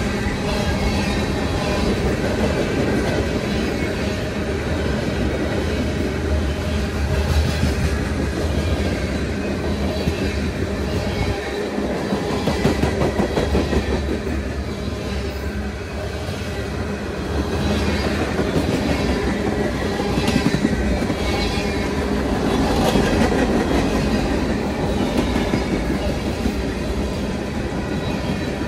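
CSX freight train's cars rolling past at close range: a steady rumble of steel wheels on rail, with repeated clacks as the wheels cross rail joints.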